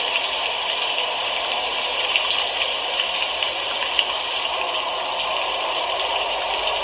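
Steady rain falling as an even hiss, with a few single drops ticking out above it.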